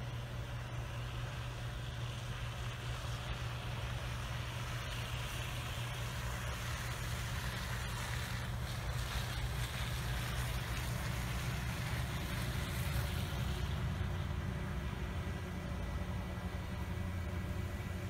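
A pickup truck driving past on a snow-covered road, its engine and tyre noise swelling for several seconds mid-way and then fading, over a steady low rumble.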